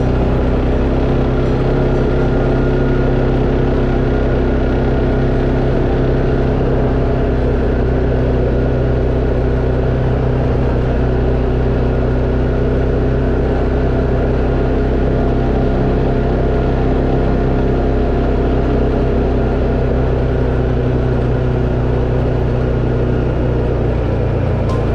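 Tracker Off Road 700 ATV engine running at a steady speed while riding a dirt trail, a constant engine drone with little change in pitch.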